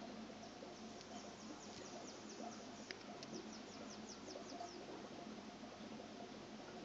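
Faint rapid chirping from a small bird: a run of short, high, downward-sliding chirps, several a second, that starts about a second in and stops near the middle. A steady low hum runs underneath.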